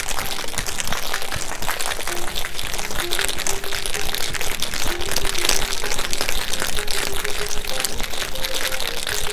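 Ice rattling inside a stainless-steel cobbler shaker shaken hard back and forth: a fast, continuous clatter of ice against metal as the cocktail is chilled and mixed.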